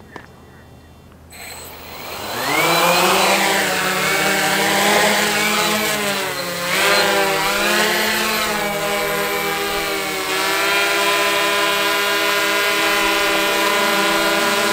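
Tarot 650 Sport quadcopter's Gartt 330KV brushless motors and propellers spinning up about a second and a half in and lifting off. The multi-toned whine wavers up and down as the craft holds a low hover, then steadies as it climbs.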